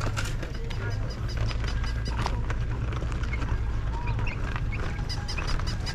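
Outdoor street-fair ambience while walking: a steady low rumble on the microphone, loudest in the first half, with faint scattered clicks and a few short high chirp-like sounds.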